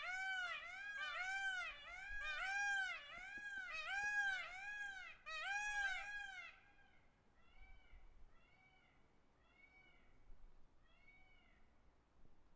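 Peacock calling: a rapid series of short calls, each rising and falling in pitch, about two a second. From about seven seconds in, a fainter, slower run of the same calls fades away.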